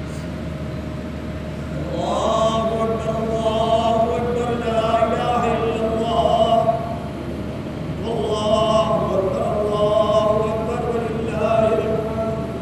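A man's voice chanting a khutba read from a book, in a melodic recitation with long held notes, over a steady low hum. It comes in two long phrases with a short pause between them, starting about two seconds in.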